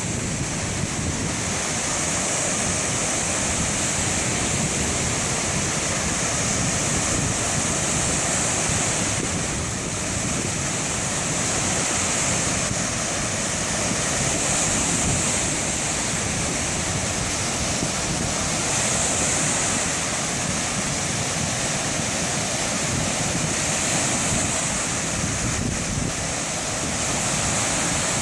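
Ocean surf washing in, a steady rushing hiss that swells and ebbs every few seconds, with wind buffeting the microphone.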